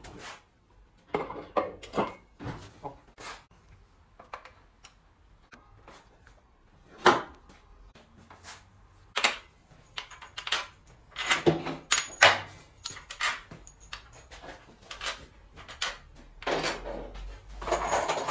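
Metal bolts and parts clinking and knocking against an aluminium transmission case during reassembly: scattered, irregular sharp clicks, with a longer rattling stretch near the end.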